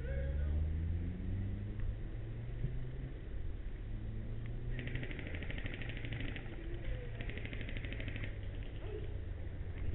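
Airsoft rifle firing two full-auto bursts, a rapid rattle of shots lasting about a second and a half, then a shorter one about a second later, over a steady low rumble.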